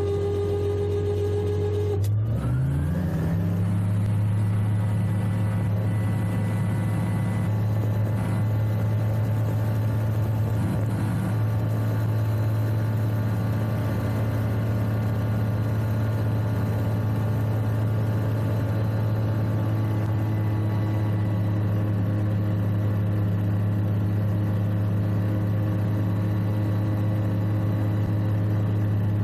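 Argon 915iS gyrocopter's turbocharged Rotax 915 iS engine and propeller, heard from inside the cockpit. About two seconds in, a steady high whine stops and the engine revs up to takeoff power, then runs steadily through the takeoff roll and climb-out.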